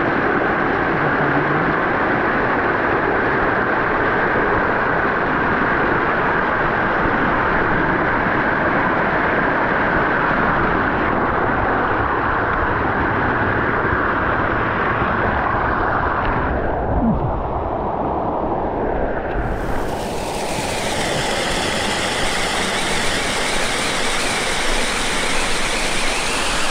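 Rushing water of a mountain stream, a loud steady noise that changes in character about twenty seconds in.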